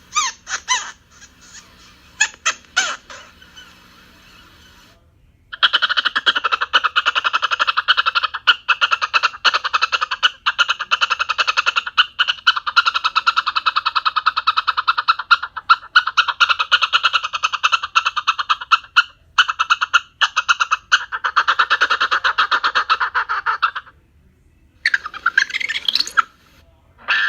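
Cartoon monkey sound effects: fast monkey chattering, first in a few short bursts, then a long unbroken stretch of rapid chatter lasting about eighteen seconds. A brief gliding call and one more burst of chatter follow near the end.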